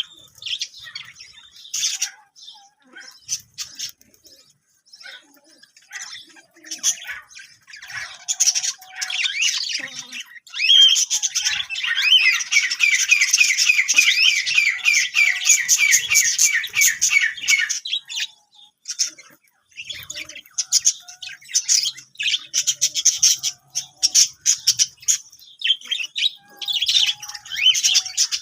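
Budgerigars chirping and chattering in short high calls, with a dense stretch of fast, repeated warbling notes in the middle.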